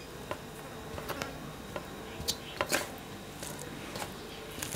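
Fingers mixing cooked rice with a bitter gourd and potato fry on a metal plate. Soft squishes and light scrapes and clicks against the plate come irregularly, the sharpest a little past halfway, over a faint steady hum.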